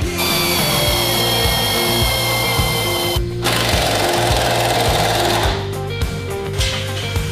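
Background rock music with a power tool whining over it. The whine cuts off suddenly about three seconds in, and a lower-pitched whirring follows for about two seconds.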